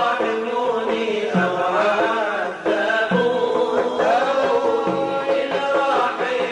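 Sufi devotional chanting: melodic sung lines over a low beat that recurs about every two seconds.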